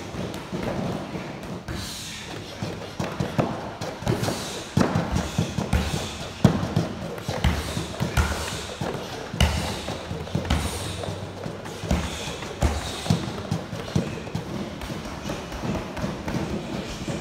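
Irregular run of thuds and slaps from a workout: battle ropes slapping the mat and fists striking punching bags, the loudest hit about six seconds in.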